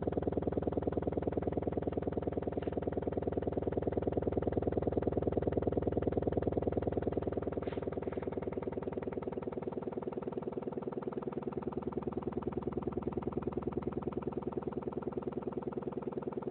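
Custom subwoofer with a TC Sounds 3hp motor and paper cone, driven hard by a low bass tone so the cone moves at near its maximum excursion (X-max), giving a steady fast pulsing buzz. It gets slightly quieter about seven seconds in.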